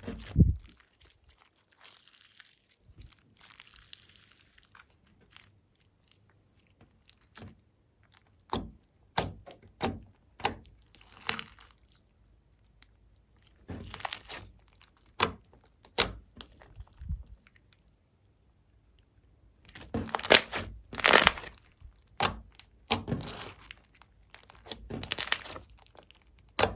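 Clear slime being squeezed and pressed by hand: irregular runs of sticky clicks and crackles with quiet pauses between them, busiest a little past two-thirds of the way through.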